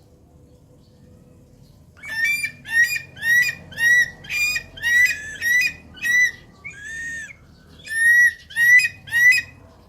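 A bird calling a dozen or so times in quick succession, about two calls a second, starting about two seconds in. Each is a short, clear, ringing note, with one hoarser call about two-thirds of the way through.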